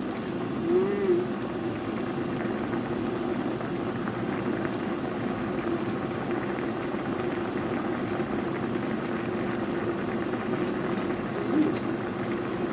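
Chicken curry sauce with milk boiling in a pan, a steady bubbling simmer.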